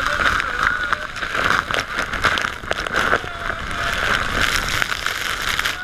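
Drenching waterfall spray on a speedboat: a dense rush of falling water with heavy droplets pelting and crackling on the camera and microphone.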